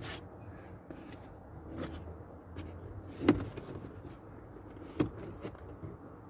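Plastic rear speaker panel being pressed into place, its retaining tabs knocking and clicking into the car's interior trim: a handful of sharp knocks, the loudest about halfway through.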